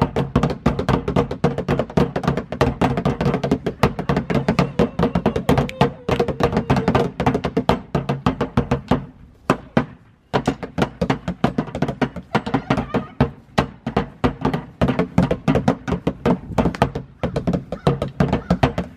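Rapid drumming with wooden sticks on upturned plastic garbage cans, used as drums: a dense run of hollow knocks with a low ringing under them. The playing stops briefly about nine seconds in, then starts again.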